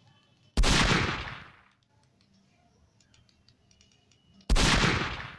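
Two loud gunshot-like bangs about four seconds apart, each starting sharply and dying away over about a second, with a few faint clicks between them.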